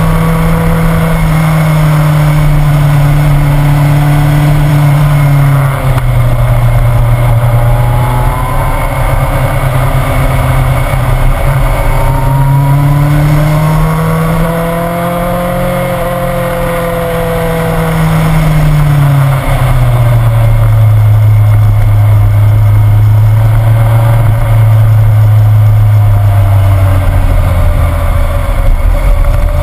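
Motorcycle engine running on the move. Its note drops suddenly about six seconds in, climbs slowly for several seconds, then drops suddenly again near twenty seconds and holds steady.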